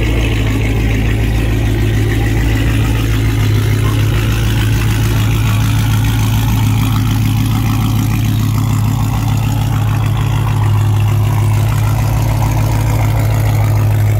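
Chrysler 300C's swapped-in 6.1 L SRT8 Hemi V8 idling steadily through its exhaust, a low, even note with no revving.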